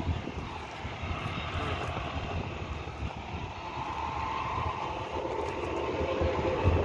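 A steady engine drone that grows louder and clearer about halfway through, with wind buffeting the microphone.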